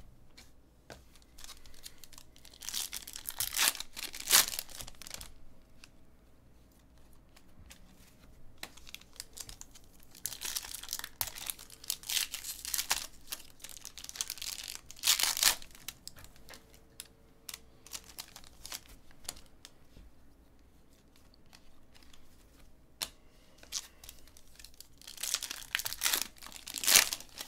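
Foil trading-card packs being torn open and crinkled in the hands. There are three bouts of ripping and rustling, a few seconds in, in the middle and near the end, with quiet card handling between them.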